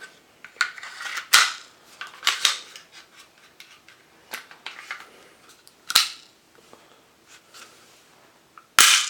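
Sharp metal clicks and clacks of a SIG Sauer P320 pistol being reassembled, its slide and parts snapping into place on the frame, with the loudest clack near the end.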